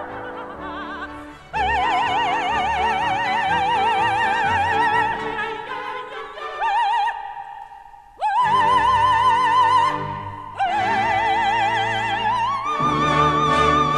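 Operatic soprano singing with wide vibrato over a symphony orchestra, in long held phrases. Near the end she climbs to a high sustained note as the orchestra swells beneath her.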